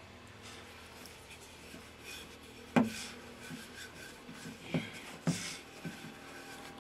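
Wooden rolling pin rolling out bread dough on a floured wooden board: a soft rubbing and rolling, broken by a few sharp wooden knocks, the loudest about three seconds in.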